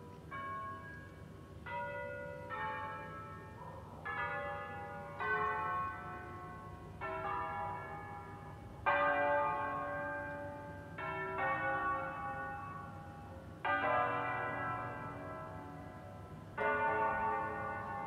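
The tuned church bells of the Basilica of Sant'Alessandro in Colonna ringing a bell concert (concerto di campane). Bells of different pitch are struck one after another in a slow, uneven melodic sequence, about a dozen strokes, each left to ring on and overlap the next; the loudest stroke comes about nine seconds in.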